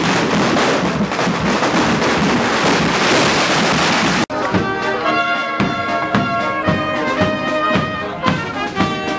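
Loud, steady noise from a street crowd with burning flares for about four seconds, then an abrupt cut to a brass band playing a tune with a regular drum beat.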